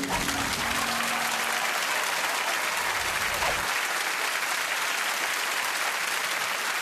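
Studio audience applauding steadily, with the last plucked harp notes of the reveal music dying away in the first second.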